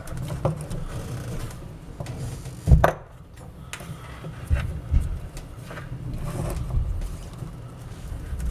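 Small metal parts of a toy-train motor being handled and fitted on a workbench: scattered light knocks and clicks, with one sharp knock a little under three seconds in, over a steady low hum.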